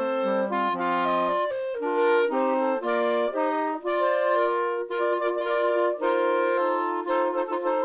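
Instrumental music: a melody of short pitched notes from what sounds like a wind instrument, moving into longer held notes in the second half.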